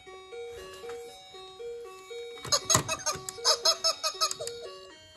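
A battery-operated musical troll toy with a guitar plays a simple electronic tune, a plain melody stepping up and down like an ice-cream-van chime. About halfway through, a quick run of loud clattering clicks comes over the tune for a second or two.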